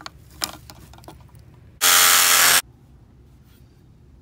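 A few handling clicks and knocks against the pipe, then a power tool run in one short burst of just under a second that starts and stops abruptly.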